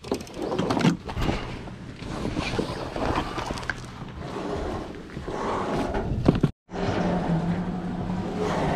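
Outdoor noise with scattered knocks for most of the stretch, cut off abruptly by a brief dropout; then a boat's engine idling with a steady low hum near the end.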